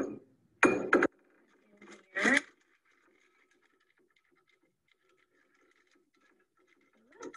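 Handling noise while fetching a piece of ice: two sharp knocks about a second in and a short squeak a little after two seconds, then faint rustling and a small knock near the end.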